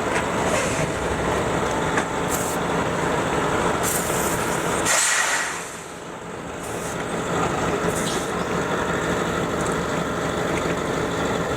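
Forklift engine running steadily, with a short hiss about five seconds in and a brief drop in level just after.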